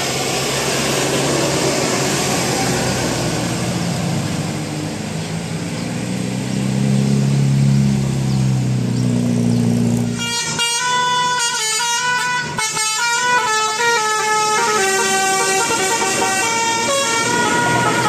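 A bus's engine and road noise as it passes. Then, from about ten seconds in, an Indonesian bus telolet horn plays a quick tune of stepped, changing notes.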